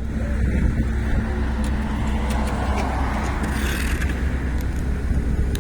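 Heavy engines of road construction machinery running steadily as a low drone, with a brief rush of hissing noise a little past midway.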